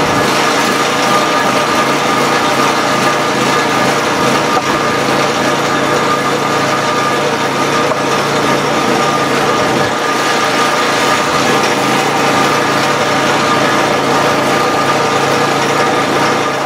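Small gas engine of a Dirty Hands 25-ton hydraulic log splitter running steadily at a constant speed.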